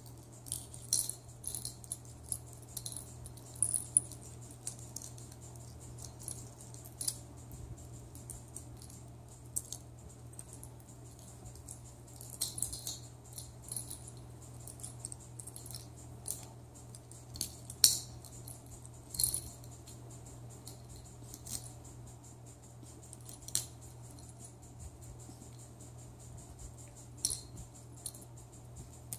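Small tinsel pom-pom toys rattling and crinkling as a raccoon paws and mouths them: scattered short, crisp clicks and rustles, a few sharper ones, over a steady low hum.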